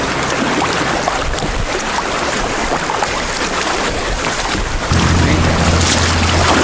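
Fast river current rushing over shallow rapids, heard close to the water surface, with wind on the microphone. About five seconds in, the sound jumps to a louder, deeper rumble.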